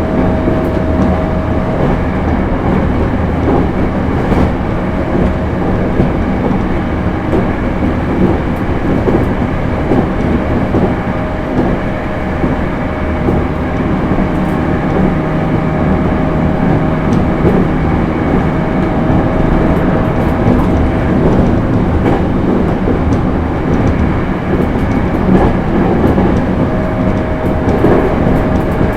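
JR East E231 series suburban electric train (Hitachi IGBT inverter) running steadily at speed: a continuous rumble of wheels on rail with light clicks from rail joints and a faint steady hum.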